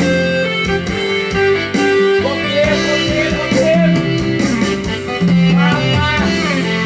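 Instrumental break in a Thai pop song: a guitar-led band plays with no singing, the lead line bending in pitch in the middle.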